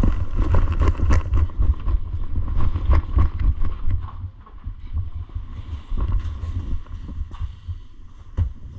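Wind and handling rumble on an action camera's microphone, with irregular low thumps, heavier in the first four seconds and lighter after.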